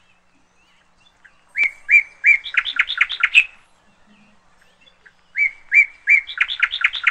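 A bird singing the same short song phrase twice: three or four even chirps followed by a quick run of rising notes. The first phrase begins about a second and a half in, the second near the end.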